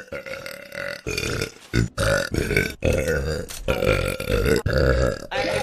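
A person burping loudly: a couple of short burps, then a long, rough run of burps from about two seconds in to just past five seconds.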